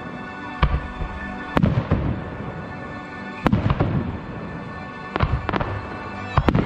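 Aerial firework shells bursting: a string of sharp bangs, about six or seven, each trailing off in a low rumbling echo, with music playing underneath.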